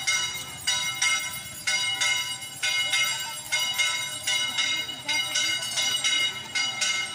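A metal bell struck over and over, about two strokes a second, each stroke ringing on with bright overtones until the next.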